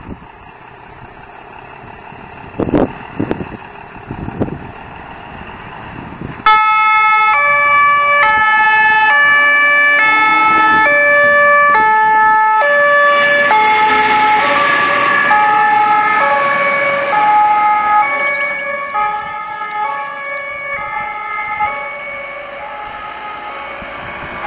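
MAN TGM fire engine's two-tone siren cutting in about six seconds in, alternating high and low notes about every two-thirds of a second, loud at first and fading as the truck drives away. Before it, quieter vehicle noise with a few short thumps.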